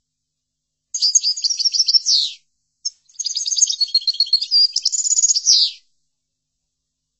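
European goldfinch (chardonneret) singing: a fast twittering phrase of high trills and short gliding notes about a second and a half long, then after a brief pause a longer phrase of about three seconds ending in a quick rattle and a falling slur.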